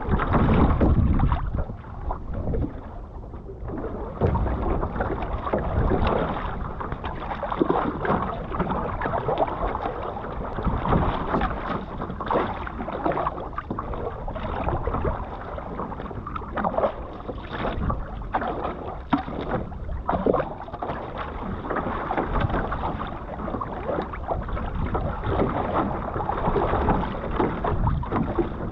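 Sea water splashing and gurgling against the hull and outrigger float of a Kamanu Composites one-person outrigger canoe as it is paddled through choppy water, with irregular splashes from the waves and the paddle strokes.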